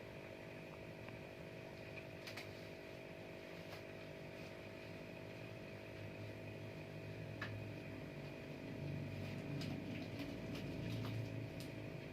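A steady engine-like motor hum with a lower rumble that swells from about eight seconds in, and a few faint clicks.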